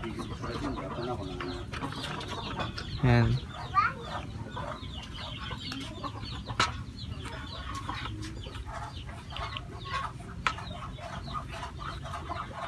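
Birds calling in the background, a steady run of short chirps and clucks, with a couple of sharp clicks near the middle and near the end.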